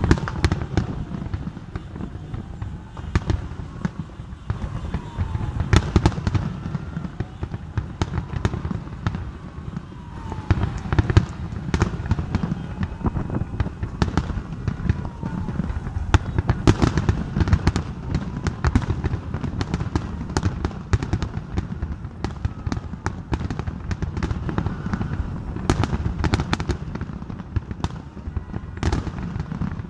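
Aerial firework shells bursting in quick succession, a string of sharp bangs over a continuous low rumble, with denser clusters about six seconds in, around eleven seconds and from about sixteen seconds on.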